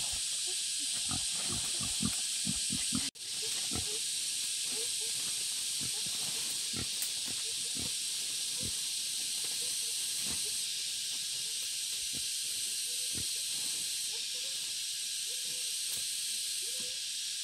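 Steady high-pitched insect drone in tropical forest, with short low grunts from a wild boar. The grunts come thick and fast in the first three seconds and only now and then after that.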